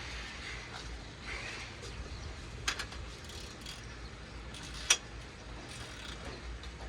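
Socket ratchet wrench working bolts on the car's AC compressor: a short run of sharp metallic clicks, then one louder click, over a low steady hum.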